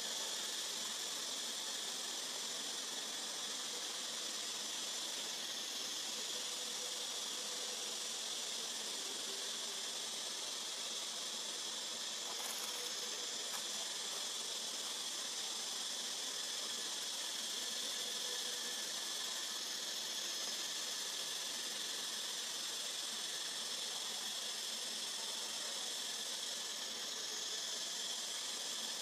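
Steady high-pitched drone of an insect chorus, unbroken throughout.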